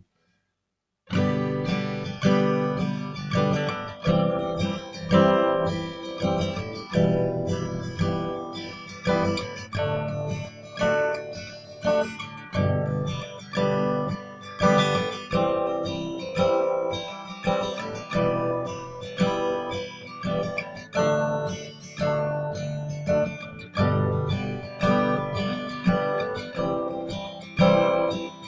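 Acoustic guitar being strummed, its chords ringing out, recorded through a BM800 condenser microphone as a sound test. It comes in after about a second of silence.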